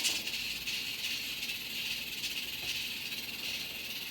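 Light rustling and rattling, a steady hiss with faint scattered clicks, from a teaser-wand toy being played with.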